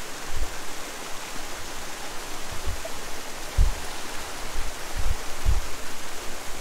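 Steady rushing of a river running over a small waterfall, with a few short low thumps in the second half.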